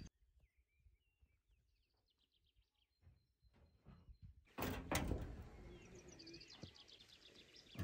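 Faint bird chirps and trills, then, a little past halfway, a makeshift barn door of wooden poles and corrugated metal is pulled open with a sharp knock and scraping.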